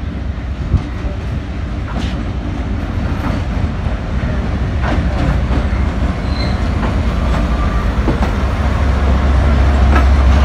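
GMCU diesel-electric locomotive hauling a passenger train into the station. Its engine drone grows steadily louder as it approaches, with sharp clacks from the wheels passing over rail joints.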